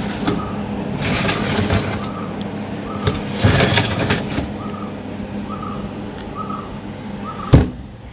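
Stainless steel trays of an electric tray dryer sliding on their runners in two scraping bursts, over a steady low hum, with a sharp knock near the end.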